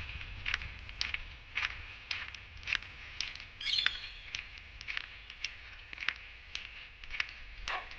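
Footsteps of a person walking on a path at an even pace, about two steps a second. A short bird chirp comes near the middle.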